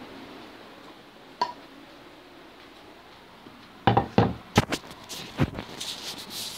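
Handling noise as the recording device is moved: a faint click, then a burst of sharp knocks and clatter about four seconds in.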